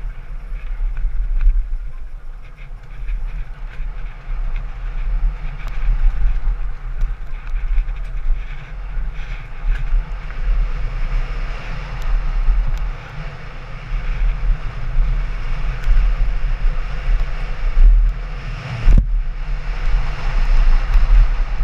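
Wind buffeting the microphone of a camera on a mountain bike riding fast down a dirt trail, with tyre noise over leaves and gravel and scattered small clicks and knocks from the bike.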